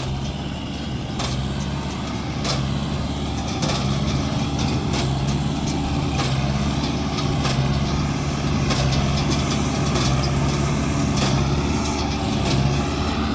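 Tractor engine running steadily, driving a hay baler, with a regular knock from the baler about once every second and a quarter.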